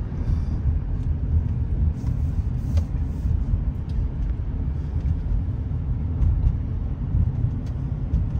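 Steady low rumble of a moving car heard from inside the cabin: tyre, road and engine noise while driving.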